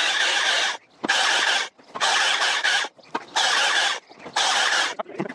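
STIHL MSA 300 battery chainsaw in standard power mode cutting through small logs, heard as a quick run of about five cuts, each under a second long with brief pauses between.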